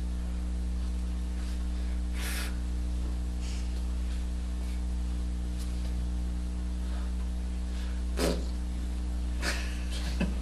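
Steady low electrical hum, with a few short bursts of noise over it; the loudest comes about eight seconds in.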